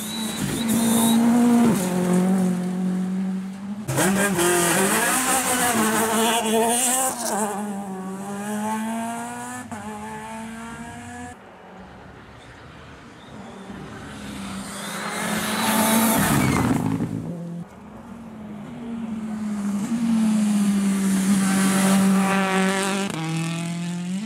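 Rally cars driven hard past the roadside, engines revving up and dropping at gear changes in several loud passes, one after another.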